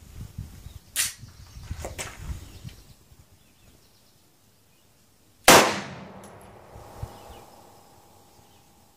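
A handgun fired once about five and a half seconds in, the loudest sound, with its echo dying away over about a second and a faint ring lingering after it. A shorter, sharp crack comes about a second in.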